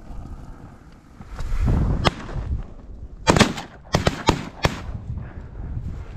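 A volley of shotgun shots at ducks, about five sharp blasts in quick succession over roughly two and a half seconds.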